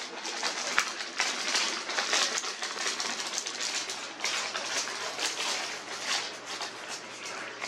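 A paper receipt being crinkled and twisted in the hand, a continuous rustling crackle with many sharp snaps.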